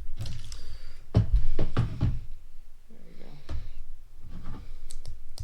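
Plastic Lego pieces being handled and fitted together: a series of irregular sharp knocks and clicks.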